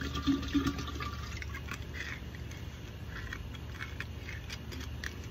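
Liquid pouring into a glass drink dispenser as it fills, a steady splashing pour.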